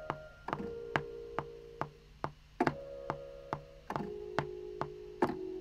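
A 140 BPM metronome clicking about two and a half times a second, under a soft synth pad playing a slow sequence of held chords, a new chord every second or so. This is the pad being recorded as the first melodic layer of a trap beat.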